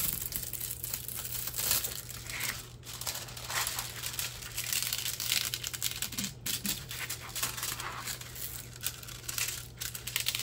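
Clear plastic cover film on a diamond painting canvas crinkling irregularly as hands smooth it back down over the glued surface.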